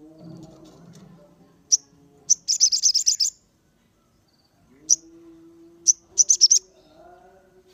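Sogon songbird calling: very high, sharp chirps, single ones and two quick trills of about eight chirps a second, one about two and a half seconds in and one near the end, over a lower, held whistling note in the second half.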